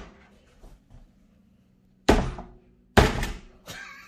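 Air fryer basket drawer being pushed into a Gourmia air fryer: two sharp thunks about a second apart as it knocks against the slot, which is not letting it seat.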